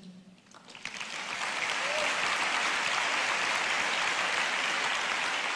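Large audience applauding, swelling up in the first second and then holding steady.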